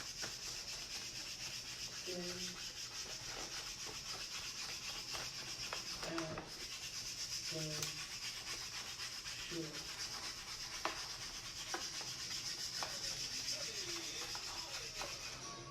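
Wood grain vinyl wrap being rubbed and smoothed down onto a metal switch panel: a steady rubbing hiss, with short squeaks every couple of seconds.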